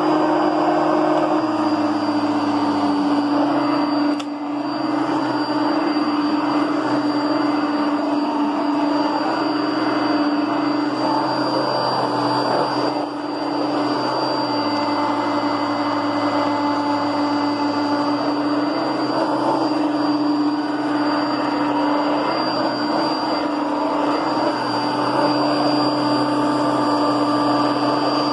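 Kenmore Heavy Duty Plus upright vacuum cleaner's 6.4-amp motor running steadily with a high whine over its hum, dipping briefly in level about four seconds in and again near thirteen seconds.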